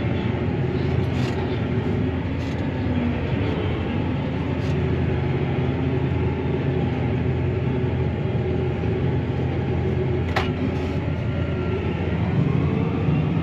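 Claas Arion 650 tractor's six-cylinder diesel engine running steadily under load, heard from inside the cab while driving over a grass-silage pile to compact it. The engine note shifts a little in pitch, and there is one sharp click about ten seconds in.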